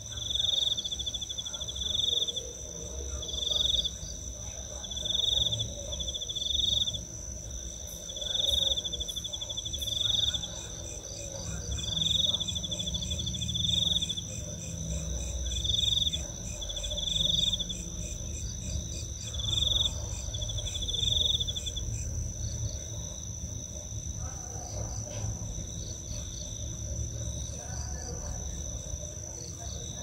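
Night insect chorus: crickets keep up a steady high-pitched trill while another insect calls in loud pulsed bursts about every one and a half seconds, the bursts growing weaker over the last third. A low rumble lies underneath.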